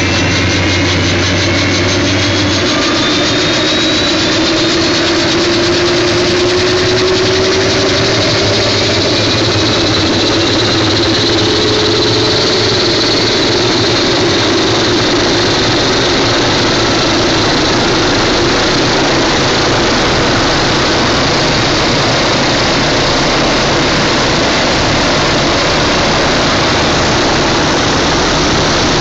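MD 530F helicopter's Rolls-Royce 250-C30 turboshaft engine spooling up during start, its whine rising in pitch over the first dozen seconds, then running steadily as the main rotor turns. A low hum drops out about two seconds in.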